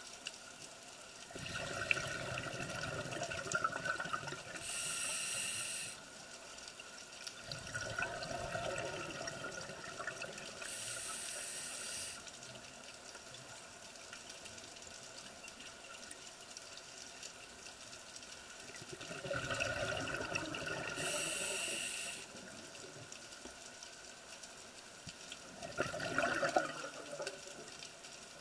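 Scuba regulator breathing: bursts of exhaled bubbles, three of them each followed by a short hissing inhale, in a slow repeating cycle with a long pause in the middle.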